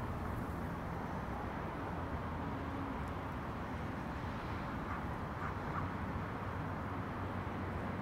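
Steady outdoor ambience of distant road traffic, a continuous low hum and hiss, with a few faint short chirps a little past the middle.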